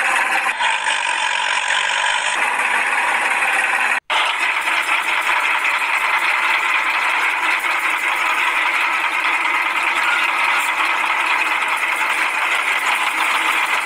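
Small electric motor of a homemade toy tractor running steadily, a buzzing whine with a rattle from its drive, broken off for an instant about four seconds in.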